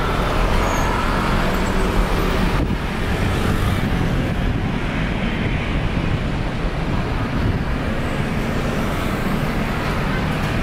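Jet engines of a Lion Air Airbus A330 at climb power just after takeoff: a steady low rumble with a faint whine early on, its upper hiss thinning after about four seconds as the aircraft climbs away.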